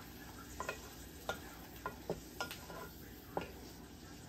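A utensil stirring food in a pan on the stove, knocking lightly against the pan about eight times at uneven intervals, over a faint steady sizzle.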